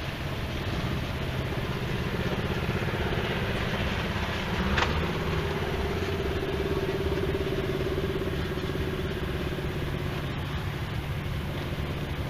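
Re-powered John Deere tractor engine running at a steady idle. About five seconds in there is a sharp click, and the engine note shifts and then holds steady.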